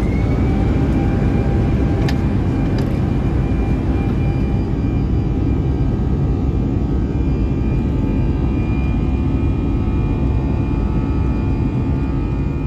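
Airbus A319 cabin on the takeoff roll: the jet engines at takeoff thrust, their whine climbing and levelling off in the first moment, over a loud, steady low rumble. A couple of light clicks about two and three seconds in.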